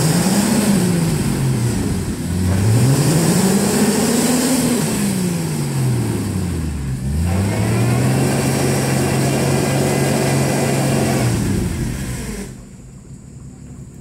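An off-road Jeep's engine revving hard on a steep dirt climb, with its tires spinning in the dirt. It makes two long surges that rise and fall in pitch, then holds high revs steadily for about four seconds before easing off near the end, as the Jeep struggles for traction.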